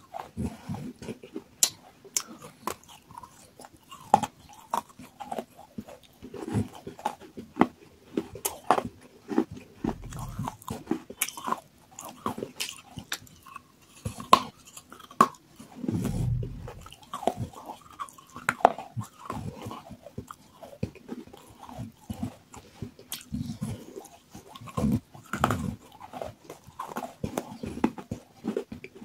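Biting and chewing of water-soaked terracotta clay pot pieces: irregular crunches and sharp cracks.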